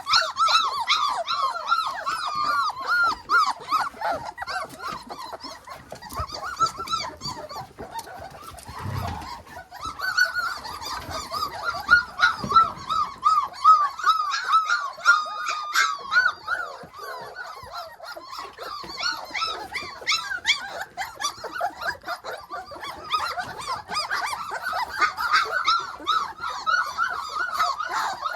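Several Hovawart puppies whining and yelping, with high, squeaky cries overlapping almost without pause. The cries ease off briefly about eight seconds in, then pick up again.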